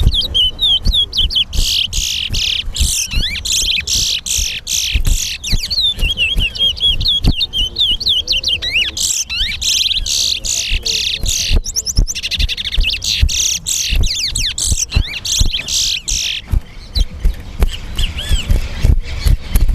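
Caged towa towa finches singing in competition: long runs of fast, high warbling and trilling song phrases, one after another, thinning out near the end. Short low thumps and clicks sound underneath.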